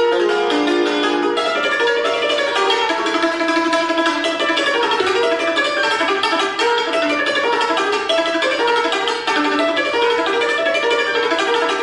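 Concert cimbalom played solo with two hammers: a fast, dense stream of struck metal-string notes, some notes held by rapid repeated strokes.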